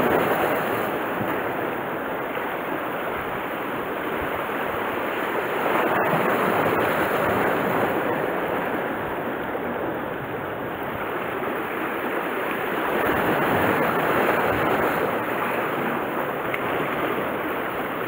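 Sea surf washing against a rocky shore: a steady rush of water that swells and eases every few seconds. Two faint clicks about six seconds in.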